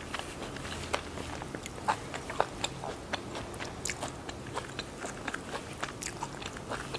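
A person chewing a bitten Vietnamese fresh spring roll (rice paper roll), with small crunches and mouth clicks coming irregularly several times a second.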